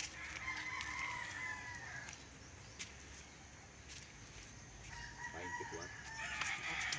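A rooster crowing twice: one long call in the first two seconds, and another starting about five seconds in.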